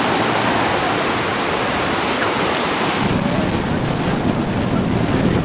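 Sea surf breaking and washing up a sandy beach: a steady rush of waves, with wind on the microphone. About three seconds in the hiss eases and a lower rumble comes up.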